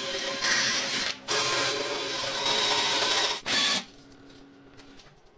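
Power wire wheel brush scouring rust off a steel frame part, a harsh steady grinding hiss that breaks off briefly twice and stops a little under four seconds in.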